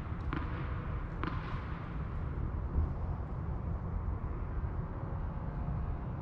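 Two sharp tennis-ball impacts about a second apart, then a steady low rumble.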